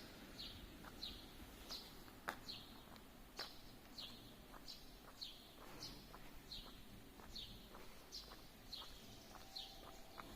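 A bird chirping faintly and repeatedly, one short slightly falling note about every two-thirds of a second, with a few soft clicks in between and a faint steady tone coming in near the end.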